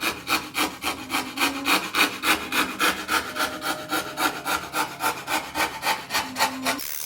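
Hand tool rubbing along the edge of a wooden kayak paddle in rapid, even back-and-forth strokes, about four or five a second, rounding the edge over. The strokes stop abruptly near the end.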